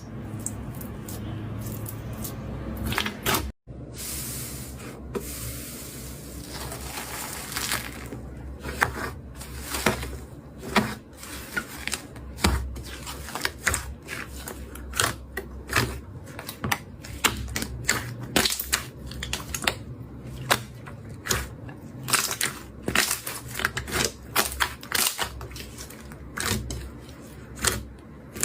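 Slime being squished and poked by hand, giving rapid, irregular clicks and pops that grow denser after the first several seconds.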